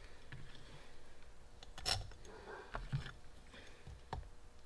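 Scattered light clicks and taps of hand tools and small carburetor parts being handled, the sharpest about two seconds in.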